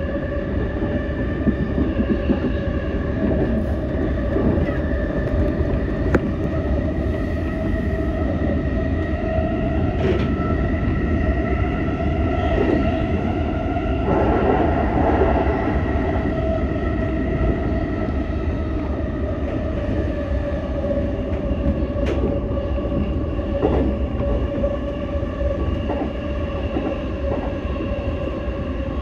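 JR East E233-series Chuo Rapid Line electric train running steadily at speed, heard from inside the front cab. There is a constant rumble of wheels on rail, a steady whine of several tones over it, and a few sharp clicks.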